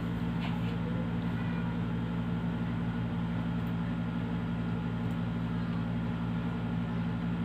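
A steady, unchanging low machine hum made of several held low tones.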